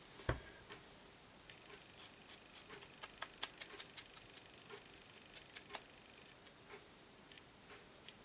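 Light, irregular taps and clicks of craft materials being handled on a wooden work table, with one dull thump just after the start.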